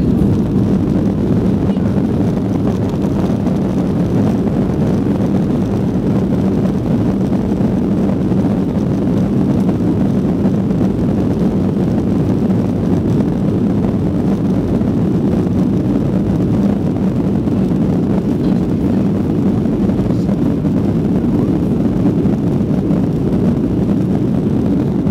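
Boeing 737 cabin noise on the ground: the jet engines and airframe make a steady rumble with a low hum, even in level throughout.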